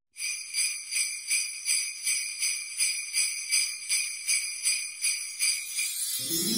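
Jingle bells shaken in a steady rhythm, about three shakes a second. Near the end, music with low notes comes in underneath.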